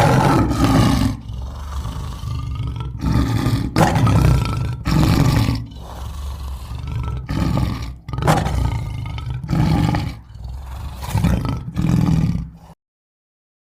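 An animal roaring repeatedly: a series of about nine deep roars, each lasting up to a second, that cuts off abruptly near the end.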